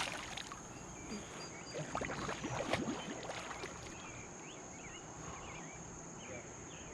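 Outdoor ambience: a steady high insect trill with faint, short chirping calls over it. A few knocks and rustles come in the first three seconds.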